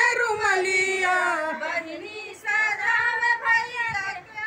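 Women singing a Bhojpuri wedding folk song together, drawing out long held notes between the lines of the verse.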